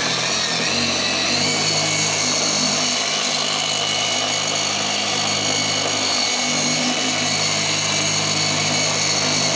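A 15 mm long-throw dual-action polisher running steadily with its foam pad working compound on car paintwork. Its hum climbs a little about a second in as the machine comes up to speed, then holds even with a steady high whine over it.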